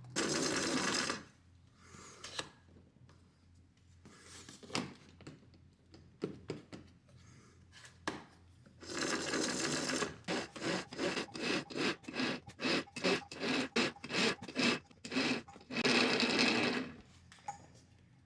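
Anbull 12V electric winch motor and gear drive running under remote control: a one-second run, a longer run, a quick series of short jogs at about two a second, then another run of about a second.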